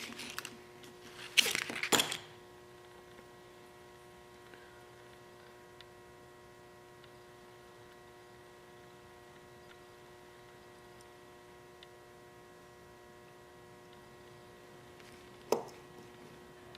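Handling noise as a stainless steel multi-tool is drawn from its Kydex sheath on a keychain: two short bursts of rustling and clicking in the first two seconds. Then a faint steady electrical hum, with a single sharp click near the end.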